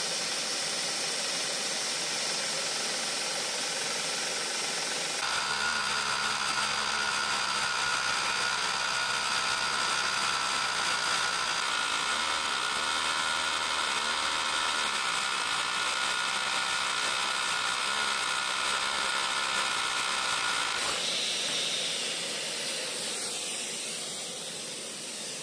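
A vacuum hose held at the drill bit hisses throughout. About five seconds in, a Makita DHR171 cordless rotary hammer starts drilling and runs steadily for about fifteen seconds, then stops, leaving the vacuum running alone.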